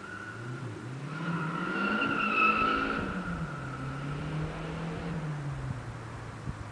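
Renault Super 5 GT Turbo's turbocharged four-cylinder engine accelerating hard in a standing-start launch, its note rising with a high tyre squeal, loudest about two and a half seconds in, then dropping in pitch and fading as the car draws away.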